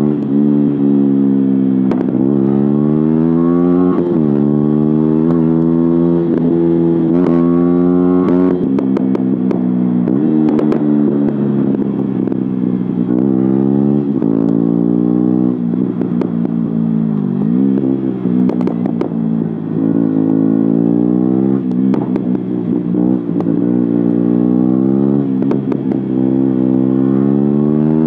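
KTM 125 Duke's single-cylinder engine through an Akrapovic exhaust with its baffle removed, accelerating hard. Its note climbs in pitch and drops back again and again as it runs up through the revs, with occasional sharp cracks.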